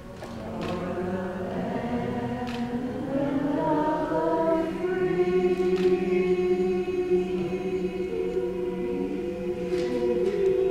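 Choral vocal music with long held voices that slide slowly in pitch, and a few light knocks over it.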